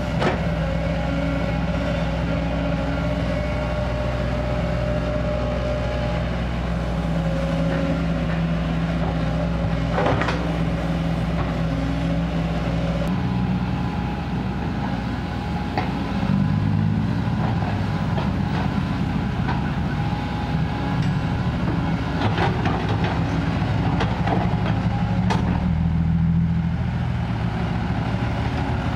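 Kobelco SK200 excavator's diesel engine running steadily, then working harder under hydraulic load partway through as the machine digs and swings. Sharp clanks and knocks of the bucket and soil come once near the middle and several times in the last few seconds.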